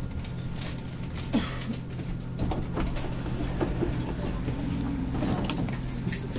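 Saarbahn light-rail tram standing at a stop with a steady low hum, while passengers' footsteps knock and scuff as they step through the open door.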